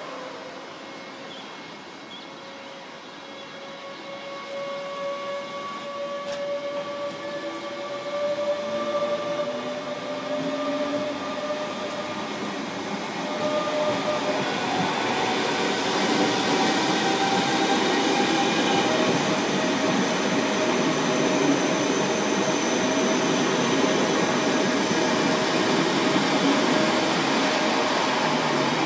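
A DB class 425 electric multiple unit pulling away from the platform. Its electric traction gives a whine of several tones that slowly rise in pitch in steps as the train gathers speed, growing louder over the rolling noise of the wheels on the rails.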